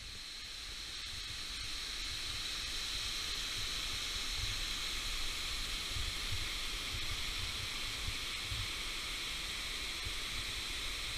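Waterfall cascading down a stepped rock face: a steady hiss of falling water that builds over the first couple of seconds, with occasional low rumbles underneath.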